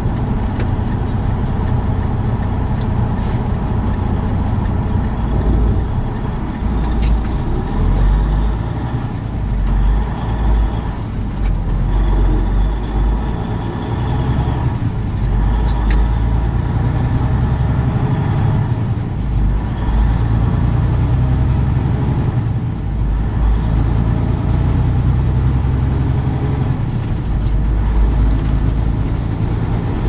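Semi-truck's engine and road noise heard inside the cab while driving, a steady low drone that swells and eases several times.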